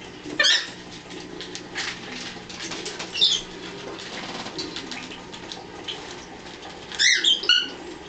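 Pet parrots giving short, sharp chirps and squeaky calls: one about half a second in, others near two and three seconds, and a quick run of several calls about seven seconds in.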